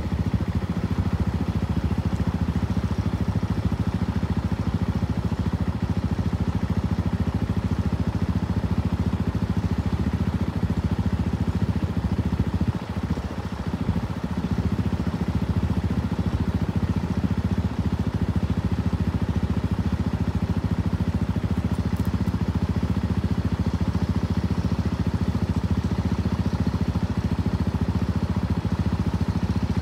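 A vehicle engine idling with a steady low rumble, dipping briefly about halfway through.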